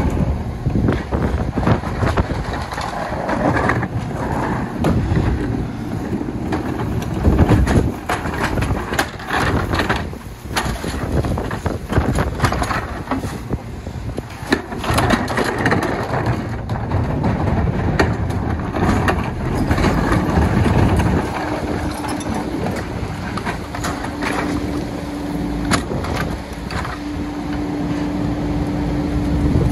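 Rear-loader garbage truck at work: carts and trash knocking and cracking as they are dumped into the hopper and crushed, over the truck's running engine. About two-thirds of the way in a steady hum sets in and holds, with a short break.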